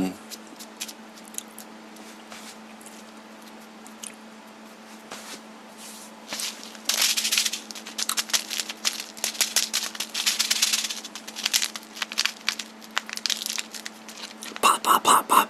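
Wrapper being handled and crumpled: scattered crackles at first, then dense crinkling bursts from about halfway through, over a steady low hum.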